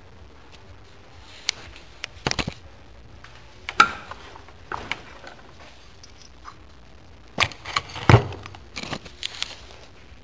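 Irregular metal clanks and knocks of tools and parts being handled, loudest about four seconds in and again about eight seconds in.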